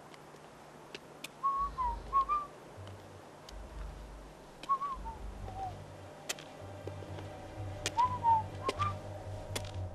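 A slow tune whistled in short notes that bend up and down, over a low pulsing bass line, with scattered sharp clicks.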